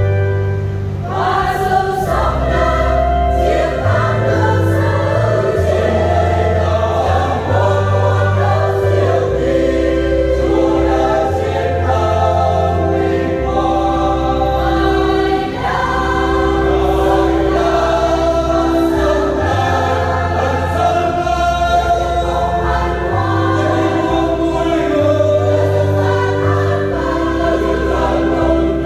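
Church choir singing an Easter hymn in parts over sustained bass notes of an instrumental accompaniment that change every second or two.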